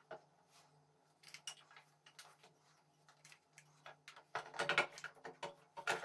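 Black plastic scooter fuel tank being handled and set down into the frame: a string of light plastic knocks, clicks and scrapes, busiest about four and a half seconds in.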